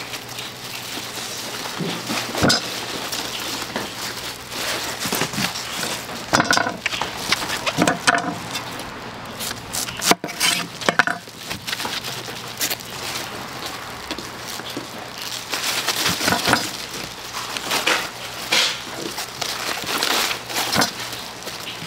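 Kitchen clatter: dishes, containers and utensils clinking and knocking now and then over a steady background hiss.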